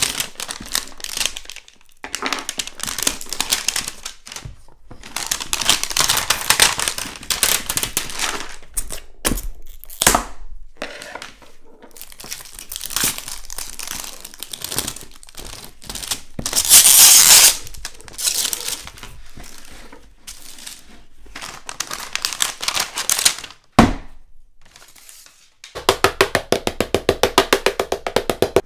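Printed plastic wrapper being torn and crinkled off a large plastic toy egg, in repeated bursts of ripping and crinkling. Near the end comes a fast, even run of ticks.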